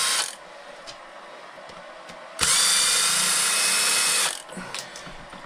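Small power driver backing out the shock-mount bolts on an RC truck: the end of one run right at the start, then a second run of about two seconds that spins up with a rising whine. A few light clicks follow.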